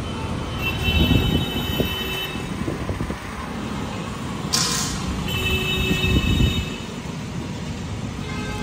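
Steady road-traffic noise, with one short, sharp hiss of air about four and a half seconds in.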